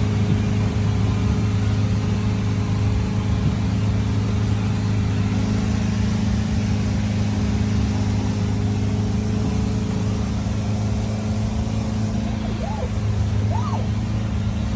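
Boat engine running steadily: a constant low drone that holds one even pitch throughout, with a rushing hiss over it.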